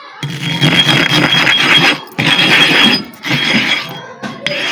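Sharpening stone being ground back and forth against sand on a flat iron bar: gritty, scraping strokes, one long stroke of about two seconds followed by several shorter ones with brief pauses between.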